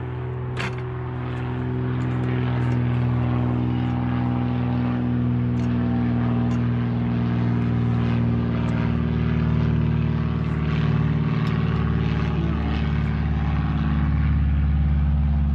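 An engine running at a steady speed, a constant low drone that grows slightly louder toward the end, with a few light clicks over it.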